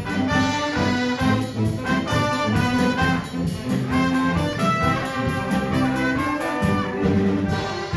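Music played by brass instruments, with held chords over a steady beat.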